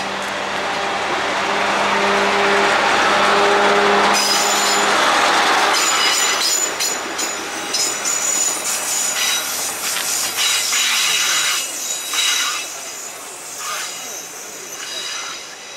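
KiHa 20-series diesel railcar moving off close by, its diesel engine running steadily. About four seconds in, the engine sound gives way to high squealing from the steel wheels on curving track, with clicks over rail joints, fading as the railcar draws away.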